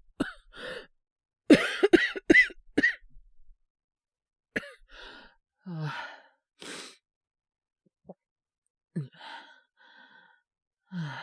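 A man acting a feverish cold: a fit of harsh coughs about a second and a half in, followed by heavy breaths, sighs and a few short low moans.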